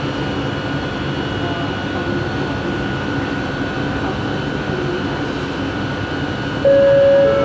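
Bombardier Innovia ART 200 train running, heard from inside the car: a steady rumble with a thin, high, steady whine over it. Near the end a loud, steady mid-pitched tone starts.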